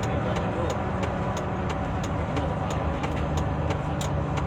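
Intercity bus running on the road, heard from inside the cabin: a steady low engine and road rumble, with light regular clicks about three times a second.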